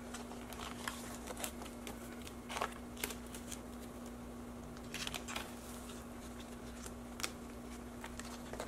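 Plastic binder pocket pages being handled: scattered soft rustles and light taps as cards are slid into the sleeves, over a faint steady hum.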